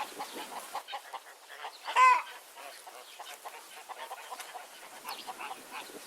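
Hens clucking in quick, short notes, with one loud, short squawk about two seconds in.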